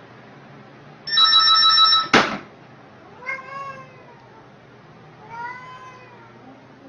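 Domestic cat meowing twice, short calls a couple of seconds apart. Before them comes a loud steady tone lasting about a second, ended by a sharp knock.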